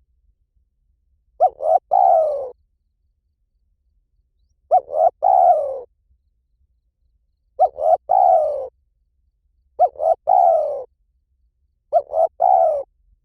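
Spotted dove cooing: five phrases, one every two to three seconds, each two short notes followed by a longer note that falls in pitch.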